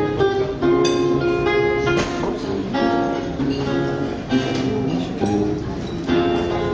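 Acoustic guitar strumming and plucking chords, a new chord struck every half second to a second.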